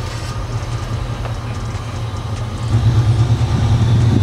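In-cab engine and road noise of a 1968 Chevrolet C10 pickup on the move: a steady low drone that grows louder about two and a half seconds in and holds there.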